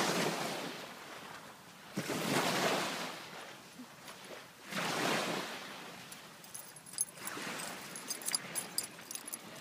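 Small waves washing onto a sandy shore, each swelling and fading every two to three seconds. From about seven seconds in, light scattered clicks join them.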